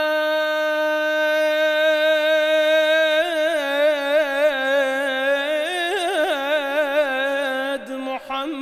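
A man singing an Iraqi devotional song in praise of the Prophet, with no instrument heard. He holds one long vowel, steady at first, then ornaments it with quick wavering turns from about three seconds in, and breaks off briefly near the end before going on.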